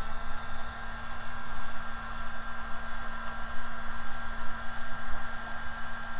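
Electric heat gun running steadily: a constant fan whine and hum over the rush of blown air.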